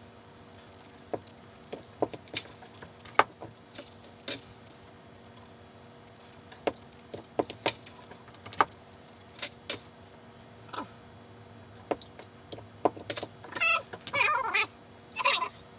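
Glass beer bottles clinking and knocking as they are handled, filled and capped. A high-pitched warbling squeak comes and goes through the first half, and a quick run of rattles follows near the end.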